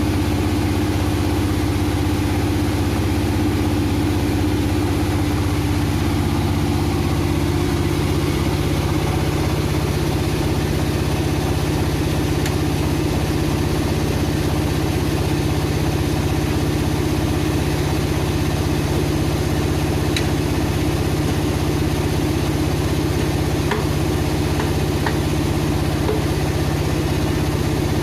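Powered wood saw running steadily with a constant, even hum and a slight change in tone about seven seconds in.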